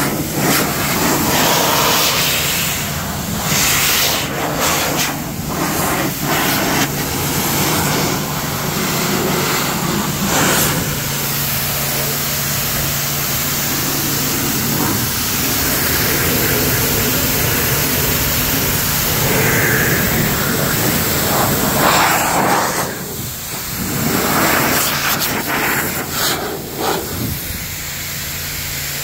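Electric car-drying blower running, a steady rush of air with a low motor hum as it blows water off the paint, its sound shifting as the nozzle moves over the body and dipping briefly a couple of times.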